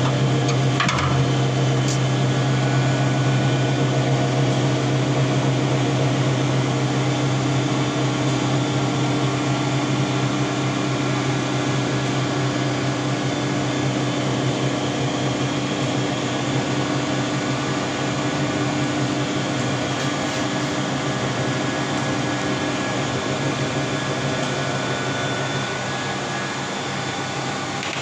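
Steady machine hum, like an electric motor running, slowly getting a little quieter.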